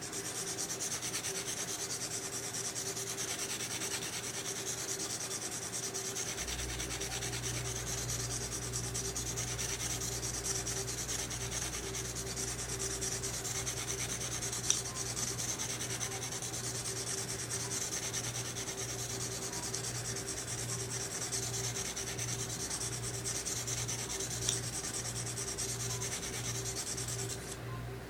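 Smith & Wesson Black Ops recurve knife blade stroked over and over across an oiled 280-grit medium sharpening stone, a steady scraping rub. A low hum comes in about six seconds in.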